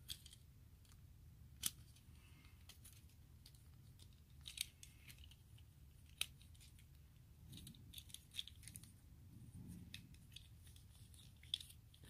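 Faint, scattered clicks and snaps of the small plastic parts of a Transformers Power of the Primes Legends-class Windcharger figure being handled and pressed together, with a few sharper clicks, as its tabs and pegs are pushed into place to close it up into car mode.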